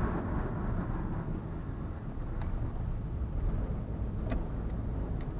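Steady low rumble of a vehicle being driven, engine and tyre noise on the road, with a few faint short clicks.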